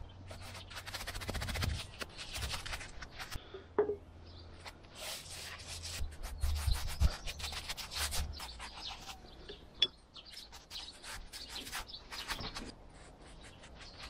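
Small paintbrush scrubbing oil onto a sawmill's roller chains: clusters of short, scratchy brush strokes against the chain links.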